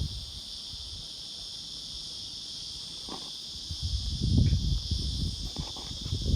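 Black prince cicada (Psaltoda plaga) singing a steady, unbroken high buzz. A low rumble on the microphone swells about halfway through and is the loudest part.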